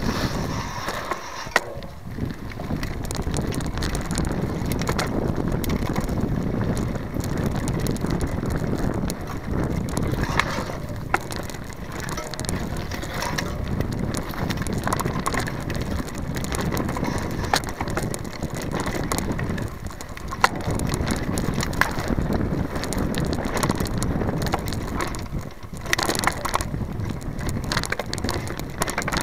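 Mountain bike rolling downhill on rough dirt singletrack, heard from a camera on the frame: a steady rumble and rattle of tyres on dirt and stones and of the bike over bumps, with a few sharp knocks.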